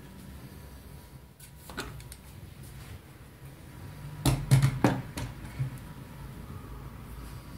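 Handling noise: a few faint clicks, then a quick run of sharp knocks and clicks about four and a half seconds in, over a low steady hum.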